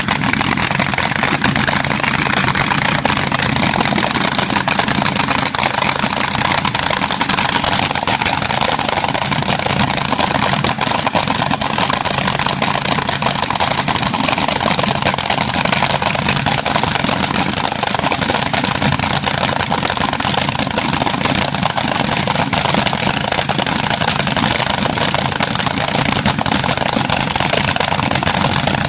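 Supercharged Chevrolet V8 of a front-engine dragster running very loud and steady after firing up, a dense unmuffled exhaust blare.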